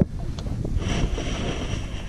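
Wind rumbling on the microphone, with water splashing around a largemouth bass held by the lip in the lake as it is released.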